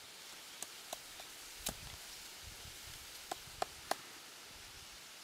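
A large knife blade chopping and notching a thin bamboo strip against a log: sharp, separate knocks, several with a short woody ring, and three in quick succession near the end.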